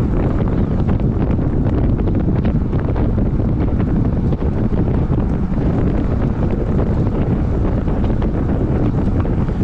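Steady, loud wind noise from a road bike moving at about 40 km/h: air rushing over the microphone makes a constant low rumble.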